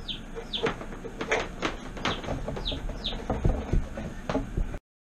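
Speaker cable and Cat 6 being fed down through the wall's top plate, rubbing and knocking against the wood framing, with short high squeaks that fall in pitch over and over. The sound cuts off abruptly near the end.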